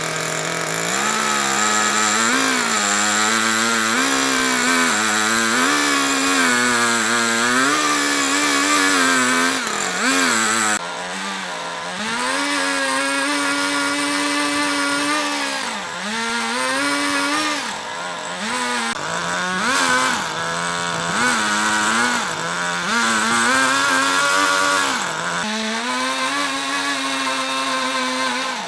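Husqvarna two-stroke chainsaw ripping lengthwise along a log, the engine running near full throttle. Its pitch sags and recovers again and again as the chain bites into the wood and is eased off.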